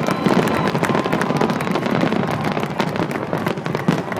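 Fireworks display going off in a dense, rapid run of overlapping cracks and bangs.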